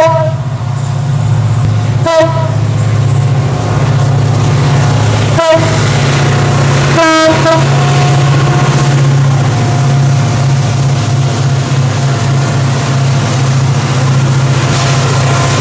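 Diesel-electric locomotives of a heavy coal train passing, the engines running with a steady low drone while the roof-mounted air horn gives four short blasts in the first half, the last and longest about seven seconds in.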